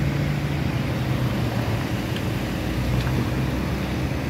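Road traffic driving past close by, cars and a van, a steady low rumble of engines and tyres.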